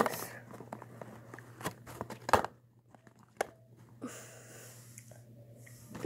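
Plastic clicks and rustling as a 2×2 Rubik's cube is handled and turned: four separate sharp clicks spread over the first three and a half seconds, then a soft rustle.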